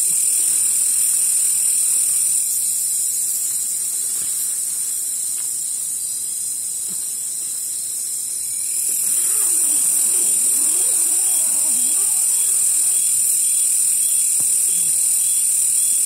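Loud, steady high-pitched chorus of night insects, a continuous shrill drone that eases slightly for a few seconds in the middle before coming back up.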